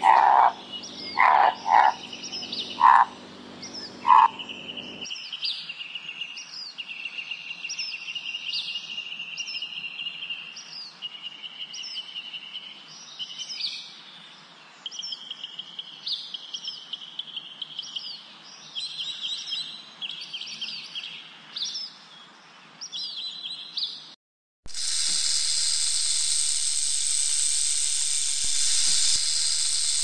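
A few short, loud animal calls, then a long run of repeated high chirping calls. About 25 seconds in, these give way to several seconds of a rattlesnake's steady, hissing rattle.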